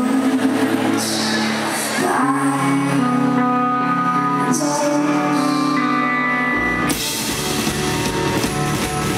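Live rock band playing: a woman sings over electric guitar and held keyboard notes. About two-thirds of the way through, a low bass comes in and the band's sound gets fuller.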